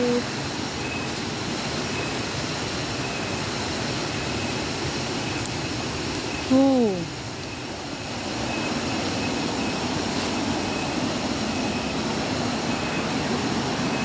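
Steady rushing of a mountain stream's flowing water. About halfway through, a short falling voice sound rises briefly above it.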